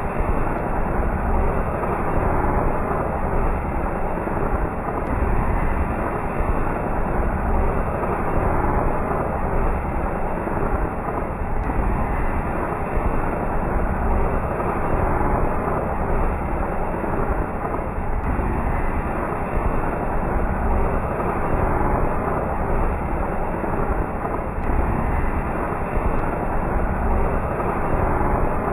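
Chakri ground-spinner firework spinning, a steady low hiss and rumble of spraying sparks that repeats in a loop about every six and a half seconds.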